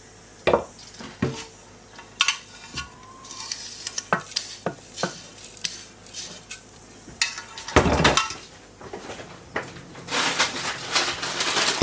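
Kitchen utensils and dishes clinking and knocking as ingredients are added to a Thermomix bowl, with one heavier knock about eight seconds in and a steady rustling hiss over the last two seconds.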